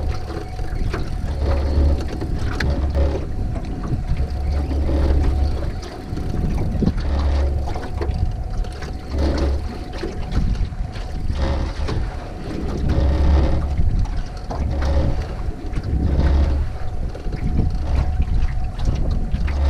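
Boat motor running steadily at trolling speed, with gusts of wind buffeting the microphone every second or two and scattered knocks and rattles.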